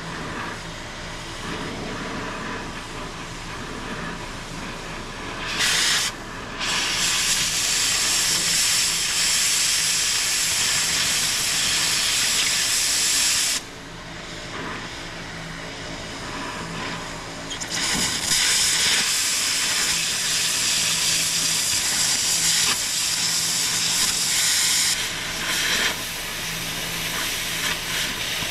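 Tractor engine running steadily under a loud hiss that comes in long stretches, cutting in and out abruptly.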